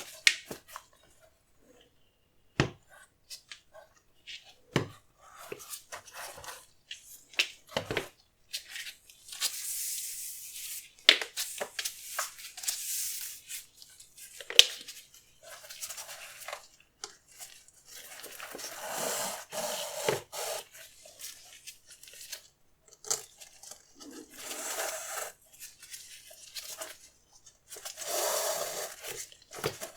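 Hands handling sneakers and their packaging: a few scattered taps and clicks, then several stretches of rustling and crinkling that last a few seconds each.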